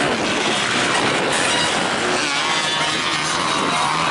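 Motocross bike engines running hard as riders race through the corners, the pitch rising and falling repeatedly as they rev and shift, most clearly from about halfway through.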